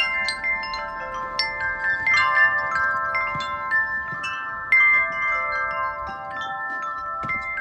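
Wind chime rung by strong gusts: many tubes struck at irregular moments, their clear tones overlapping and ringing on, with a bright strike about five seconds in.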